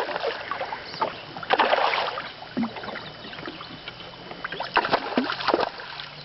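Water splashing in two bursts as a hooked bass thrashes at the surface beside a fishing boat.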